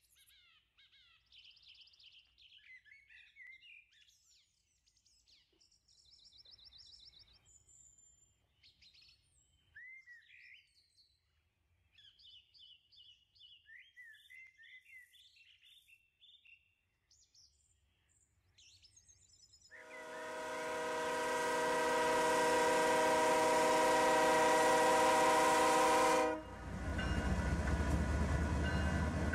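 Birds calling and chirping faintly for most of the time. Then a diesel freight locomotive's air horn sounds one long blast, swelling for about six seconds and cutting off sharply. The locomotive's low engine rumble follows as it approaches.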